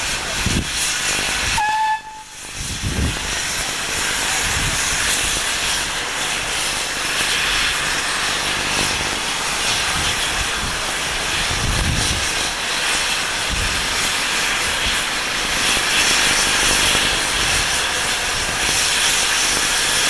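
Steam locomotive hissing steadily as it lets off steam, briefly cut off about two seconds in. Wind buffets the microphone with low thumps.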